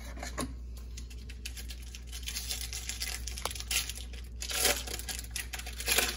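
A trading card pack wrapper being torn open and crinkled by hand: a run of ripping and rustling, loudest in a couple of bursts near the end.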